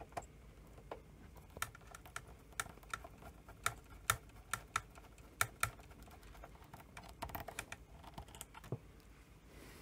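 Screwdriver driving a screw into the metal chassis of a Sony SL-C9 Betamax VCR: a string of small, irregularly spaced clicks and ticks.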